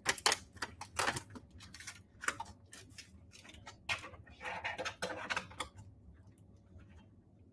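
Small kitchen handling sounds: a quick run of light clicks and knocks as containers are moved on the benchtop, then a packet wrapper crinkling for about a second, starting about four and a half seconds in.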